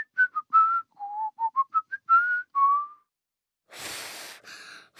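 Whistling of a short melody of about a dozen quick notes, stepping up and down in pitch. After a pause, two breathy puffs of air with no tone follow: a failed attempt at whistling.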